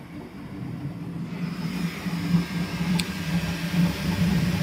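Bambu Lab X1 Carbon 3D printer running a print: the stepper motors hum in low, shifting tones under fan hiss, growing louder over the first couple of seconds. One sharp click about three seconds in.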